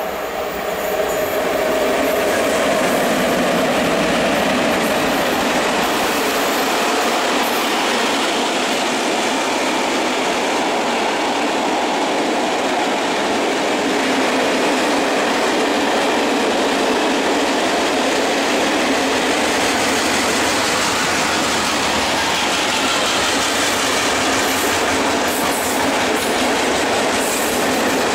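Long freight train of loaded open coal wagons, hauled by a pair of EU07 electric locomotives, rolling through at steady speed: a continuous rumble and clatter of wheels on the rails. It swells about a second in as the wagons come close, then holds steady.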